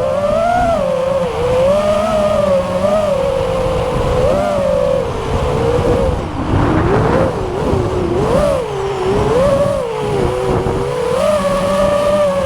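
FPV quadcopter's brushless motors whining in flight, the pitch rising and falling with each throttle change.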